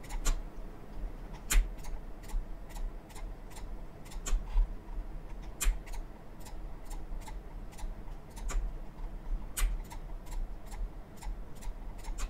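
Computer mouse button clicking over and over, about two or three sharp clicks a second and a few louder than the rest, as items in a list are selected one by one with Control held.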